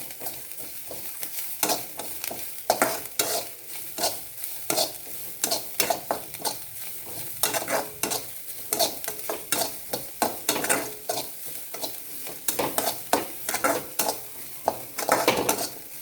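Chopped vegetables being sautéed in oil in a kadai, stirred over and over with a utensil scraping the pan, over a steady sizzle.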